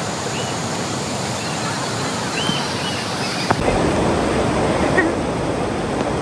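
Steady rush of waterfall and river water. About three and a half seconds in, the sound changes abruptly to a deeper rush.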